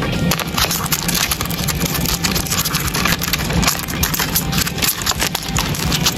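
Dense, continuous scratching and crackling of two stag beetles' clawed legs gripping and scraping on bark as they grapple and shove each other, with a steady low hum underneath.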